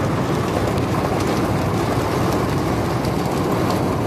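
Heavy storm rain and strong wind beating on a moving car, heard from inside the cabin as a steady, loud rushing noise with the car's road noise underneath.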